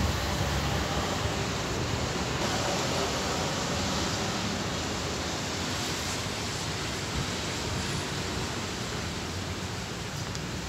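Steady rushing noise of wind on the microphone, easing off slightly toward the end.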